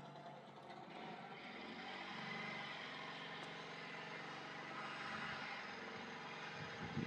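A steady motor or engine running, growing louder over the first two seconds and then holding.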